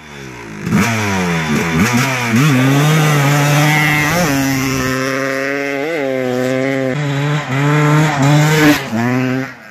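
Yamaha two-stroke motocross bike's single-cylinder engine revved in quick blips, then pulling hard away under load. Its pitch climbs and drops again and again as it shifts up through several gears.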